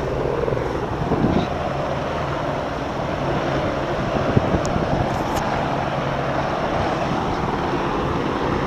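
Helicopter flying nearby: a steady drone of engine and rotor with a low hum, and a brief click about four seconds in.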